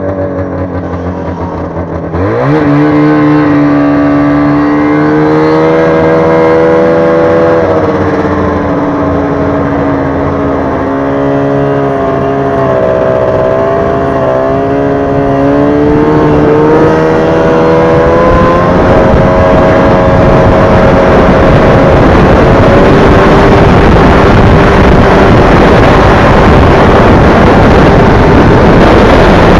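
Arctic Cat snowmobile engine heard from the rider's seat: running low, then the throttle opens about two seconds in and the engine note jumps up, holding high and wavering as the sled pulls away. In the second half the engine note gives way to a louder, steady rushing noise as the sled runs at speed across open snow.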